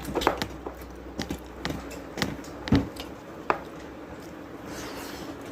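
Eating sounds: scattered light clicks and taps of food being handled on a plate and chewed, with one louder knock just before the middle.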